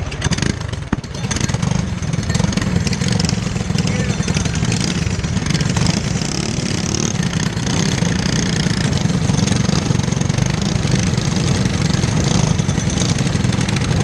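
Briggs & Stratton LO206 four-stroke single-cylinder kart engine idling steadily, with other kart engines running close by.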